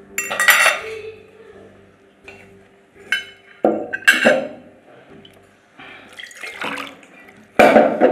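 Water poured from a plastic jug into a drinking glass in several short, splashy pours, with tableware clinking.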